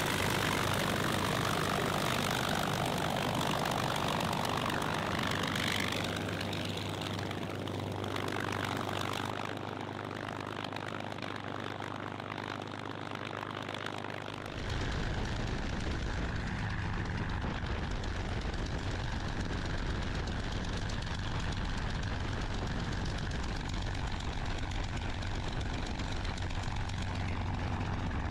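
Highly modified Rolls-Royce Merlin V12 of a P-51D Mustang air racer running at low power as the plane taxis, heard from outside. About halfway through, the sound switches to a steady, deeper idle rumble heard from inside the cockpit.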